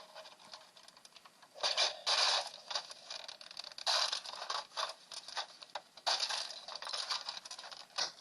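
Small loose hard parts rattling and clinking, handled in several bursts of rapid clicks with brief pauses between.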